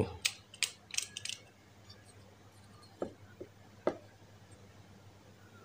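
Small sharp clicks followed by a few light knocks as an old bicycle dynamo and its lamp wiring are handled.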